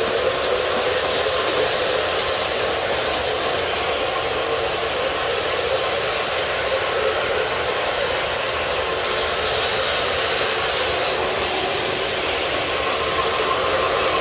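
Several O-gauge model trains running at once: a steady clatter of metal wheels rolling over the track, mixed with the whir of their motors.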